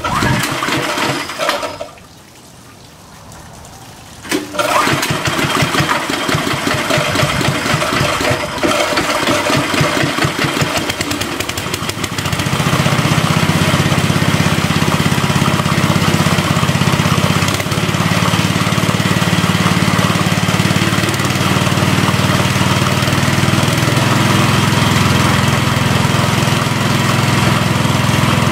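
Small air-cooled gasoline engine driving an ore impact mill, starting up about four seconds in. It runs unevenly for several seconds, then settles into a steady run.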